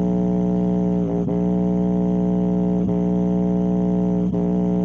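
Hip-hop instrumental played through a Defender subwoofer speaker system at full volume: one held low note with many overtones, briefly broken about a second in, near three seconds and again past four seconds.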